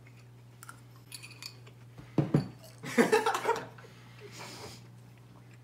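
A metal spoon clicks faintly against a glass bowl. About two seconds in come loud wordless vocal outbursts, laughing and exclaiming, at someone swallowing a spoonful of silkworm pupae. A short breathy puff follows near the end.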